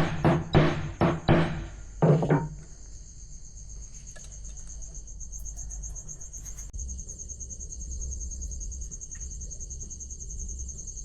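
Hammer blows on metal, about three a second, with one last blow about two seconds in. Then a steady high-pitched pulsing trill over a low hum.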